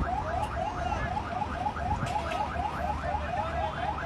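Electronic alarm sounding a fast, evenly repeating rising chirp, about six chirps a second, over a low rumble.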